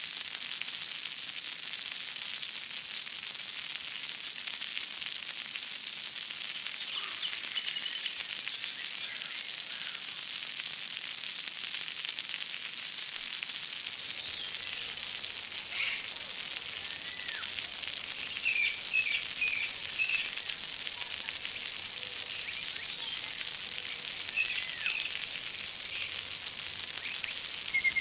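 Steady hiss of splashing, running water, with short bird chirps now and then in the second half.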